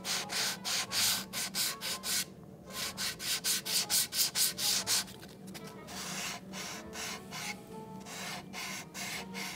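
Sandpaper rubbed by hand back and forth along the edge of an alder wood box to soften it, in quick hissing strokes about three to four a second. After about five seconds the strokes turn lighter and quieter.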